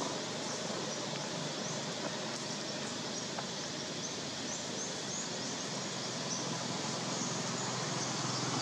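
Outdoor forest ambience: a steady background hiss with short, high bird chirps repeating throughout.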